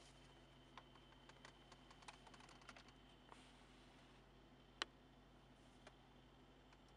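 Near silence broken by faint scattered clicks and taps: a quick irregular run of them in the first three seconds, then one sharper click near the five-second mark and a faint one after it.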